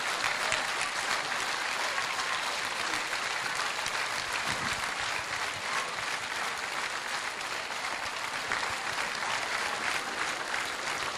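Crowd applauding steadily, a long ovation that doesn't let up.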